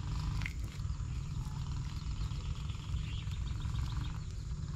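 Faint insect chirping, with a quick run of ticks about halfway through, over a low steady rumble.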